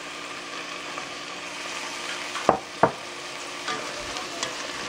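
Vegetables (beans, carrot, sweet corn, peas) sizzling as they go into a steel pot of sautéing onion and tomato. Two sharp knocks on the pot come about two and a half seconds in, then lighter clinks as a spoon stirs them.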